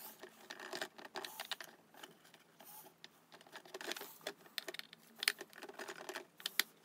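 Faint scattered clicks and light knocks of a security camera housing and its bracket being handled and turned with gloved hands, with a few sharper clicks near the end.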